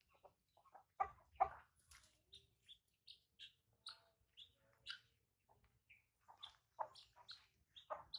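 Quiet, scattered short high chirps, with a few louder, lower clucking calls in between.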